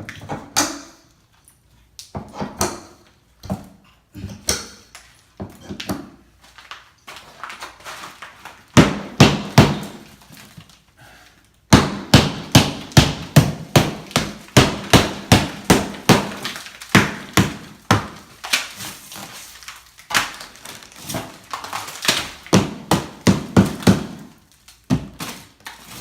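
Repeated hammer blows knocking out an interior wall: scattered knocks at first, then fast runs of about two to three strikes a second with short pauses between.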